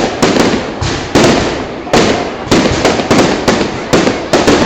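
Aerial fireworks bursting in a rapid string of loud bangs, two or three a second, each fading out in echo.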